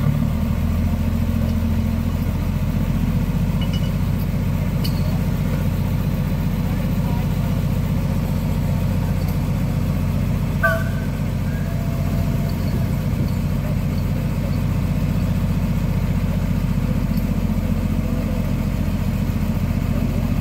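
Engine of a small Plymouth switcher locomotive running steadily at a low, even speed.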